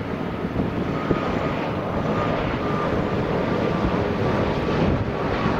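Airbus A330 airliner on final approach, its twin jet engines giving a steady roar with a faint whine running through it.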